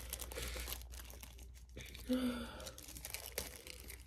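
Crinkling and rustling of the packaging and parts of a COVID-19 home test kit being handled, with light clicks and taps. A brief low hum about two seconds in.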